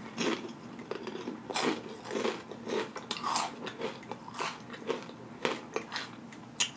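A person chewing Paqui Haunted Ghost Pepper tortilla chips with the mouth closed, close to the microphone: uneven crunches and lip smacks, about two a second.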